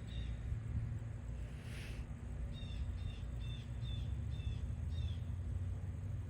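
A bird calling in a quick series of short, high chirps, about three a second, starting a couple of seconds in, over a steady low outdoor rumble.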